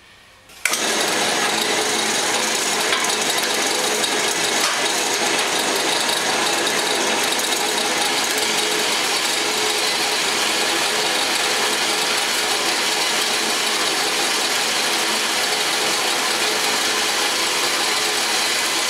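Horizontal bandsaw, tilted up to work as a vertical saw, running with its blade cutting through a thin-walled metal tube that is turned by hand into the blade. A steady, even cutting noise starts abruptly a little under a second in and holds without a break.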